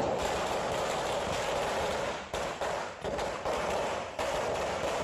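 Fireworks and firecrackers going off: a dense, steady crackling hiss broken by irregular sharp pops.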